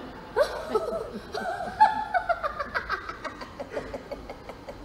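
A woman laughing in quick, high-pitched pulses, about five a second.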